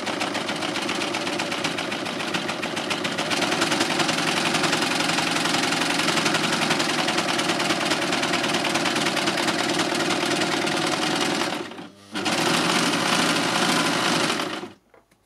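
Success Lucie four-thread overlocker (serger) running at speed, stitching and trimming the edge of sweatshirt fabric with a fast, even rattle. It stops for a moment about twelve seconds in, runs on again, then stops near the end.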